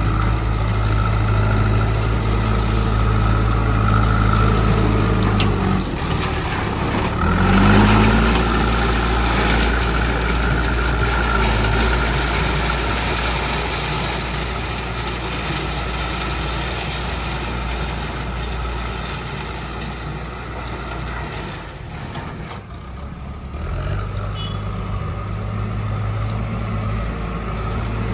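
Diesel engine of a JCB backhoe loader working steadily under load. It revs up sharply about eight seconds in, eases off briefly a little past twenty seconds, then picks up again.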